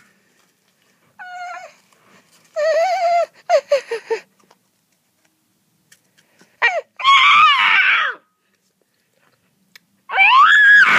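A girl imitating a cat, making drawn-out meows and whining cries in several separate bouts. The last bout is the loudest.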